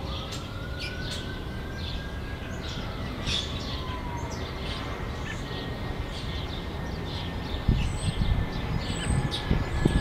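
Small songbirds chirping rapidly and continuously. A faint siren rises and falls slowly in the first few seconds. A low rumbling starts about eight seconds in and is the loudest sound.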